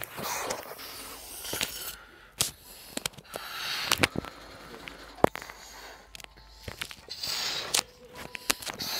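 A child blowing up a balloon: several long puffs of breath into it, with a few sharp clicks and knocks from handling the balloon and phone.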